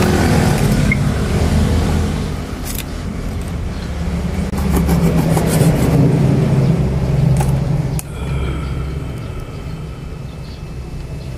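Low engine-like rumble of a motor vehicle running close by, easing off and swelling again, with a few sharp clicks.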